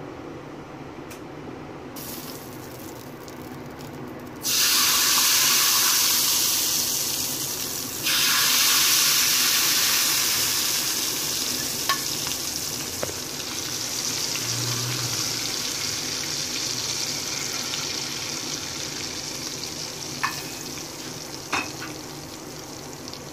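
Hot desi-ghee tadka poured from a ladle onto a bowl of dal, sizzling: a loud hiss starts suddenly about four seconds in, breaks off briefly, starts again with a second pour and slowly dies down. A few light clicks come near the end.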